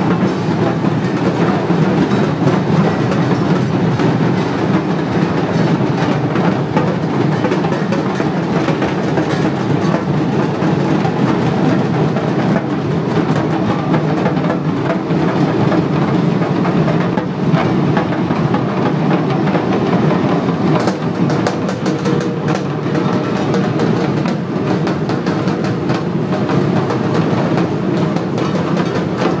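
Loud, unbroken drumming with a rapid beat from a street procession.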